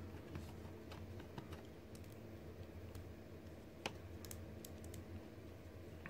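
Faint scattered clicks and light taps of a plastic Power Rangers Lightning Collection S.P.D. Blue Ranger action figure being handled and posed, its joints and parts knocking, one sharper click a little past halfway. A steady low hum runs underneath.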